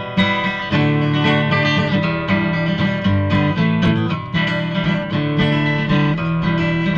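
Acoustic guitar strummed in an instrumental break between verses of a folk song, steady chords with a regular strumming rhythm.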